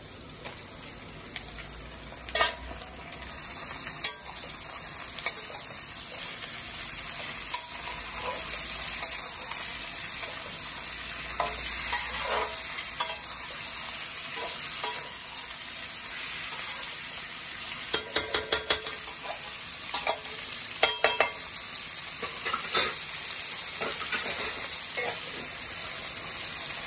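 Chicken pieces and sliced onions frying in hot mustard oil in a metal kadhai, a steady sizzle that grows louder a few seconds in as the raw chicken goes into the oil. A metal spatula scrapes and clinks against the pan as it is stirred, with a quick run of several taps about two-thirds of the way through.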